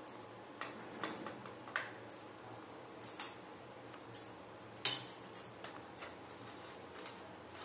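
A steel ladle clinking and scraping against a metal kadai while thin besan-and-buttermilk kadhi is stirred. The light metallic clinks come at scattered moments, with the sharpest one a little before the fifth second.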